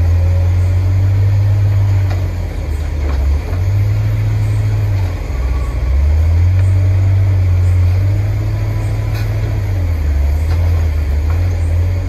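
Heavy diesel engine of a bulldozer or logging truck running, its deep rumble swelling and easing several times. A few faint knocks sound through it.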